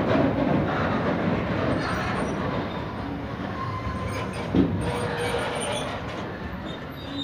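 Freight train wagons rolling past: a steady rumble and rattle of steel wheels on the rails, with one sharp knock about four and a half seconds in. The noise slowly fades toward the end.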